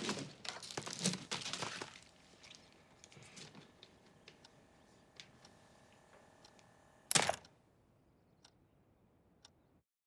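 Drama sound effects: crackling, knocking handling noises for about two seconds, then a faint steady hum with a few light ticks, and one loud sharp crack about seven seconds in.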